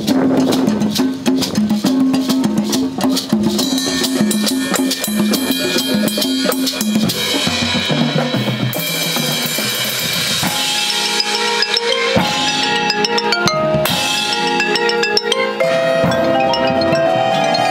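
Marching band front ensemble playing: marimbas and vibraphone over bass drum, drum set and auxiliary percussion. Dense drumming with a repeating low mallet figure gives way, about halfway through, to longer ringing mallet-keyboard notes and chords.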